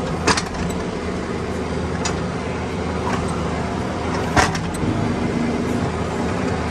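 Bobcat 322 mini excavator's three-cylinder Kubota diesel running steadily while the machine swings, with two sharp clanks, one just after the start and one about four and a half seconds in.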